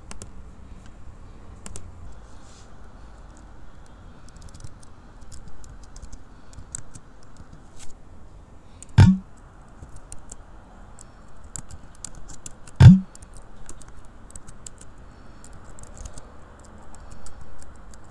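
Computer keyboard typing: scattered light key clicks, with two much louder heavy thumps, one about nine seconds in and another about four seconds later.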